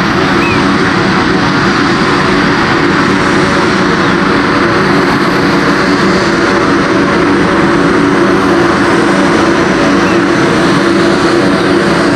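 Beechcraft Super King Air B200GT's twin Pratt & Whitney PT6A turboprop engines and propellers running at taxi power, a loud, steady drone with a layered hum of several tones over a hiss as the aircraft taxis toward the listener.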